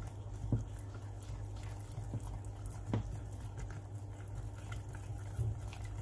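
A wire whisk stirring thick cake batter in a glass bowl, soft scraping with a few light taps against the glass, over a low steady hum.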